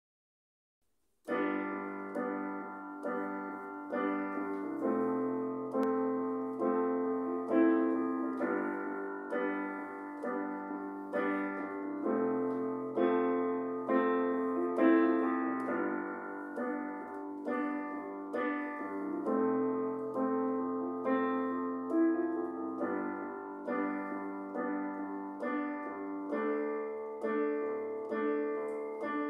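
Roland GO:PIANO88 digital piano played solo, starting about a second in. Both hands play a run of chords over a low bass line.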